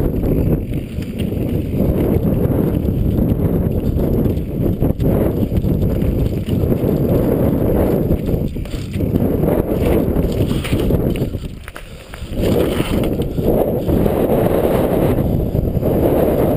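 Mountain bike riding fast downhill: loud wind buffeting on the microphone over the rumble and rattle of the tyres and bike on gravel, stone slabs and a wooden boardwalk. It eases off briefly about twelve seconds in.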